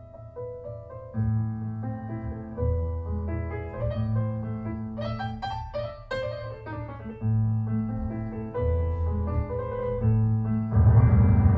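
Solo piano recording played back through Focal Diva Utopia loudspeakers: deep bass notes held under chords and runs, swelling louder near the end.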